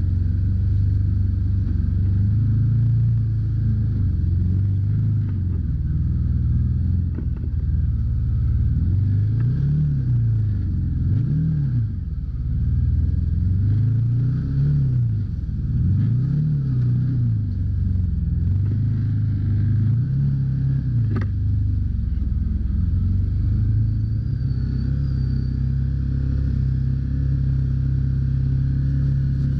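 Side-by-side UTV engine running under load on a muddy trail. It revs up and down over and over through the middle as the throttle is worked through mud holes, then holds a steady, higher speed near the end. There is a single sharp knock about two-thirds of the way in.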